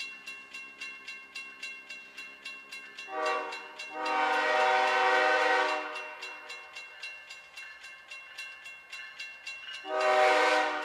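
Freight diesel locomotive's multi-note air horn sounding a short blast about three seconds in, then a longer one, and another blast near the end. Under it a grade-crossing bell rings about three times a second.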